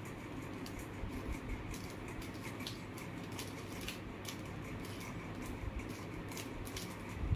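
Mirror cube being turned by hand: its plastic layers click in quick, irregular clicks as they are twisted.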